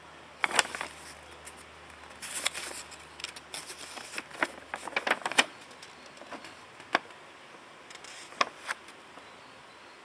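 Paper instruction leaflet being unfolded and handled: irregular crackles and rustles of the sheet, thickest in the middle, with a few single sharp crinkles near the end.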